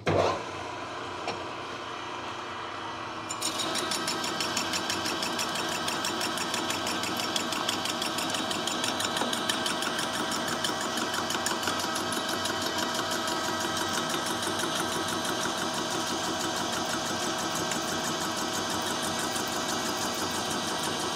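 A short thump, then a large manual lathe running; about three and a half seconds in, a carbide insert starts a 50-thousandths facing cut on heavy wall steel tubing, a louder, harsh cutting noise with fast regular ticking. The cut runs through the chewed-up saw-cut face, where the machinist suspects embedded bandsaw teeth, and he thinks it has already broken the corner of the insert.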